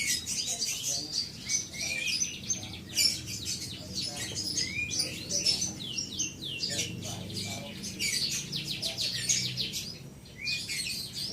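Canary in full song: a fast, almost unbroken run of rapid trills and chirps, with a short pause a little after ten seconds in.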